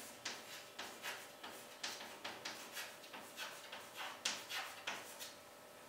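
Chalk scratching on a blackboard as words are written by hand: a quick run of short strokes, about four a second, that stops shortly before the end.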